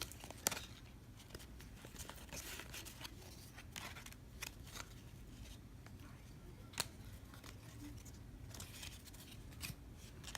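Faint handling of trading cards and their packaging: light rustling with scattered short clicks and snaps as cards are flipped through, one sharper tick about two-thirds of the way in.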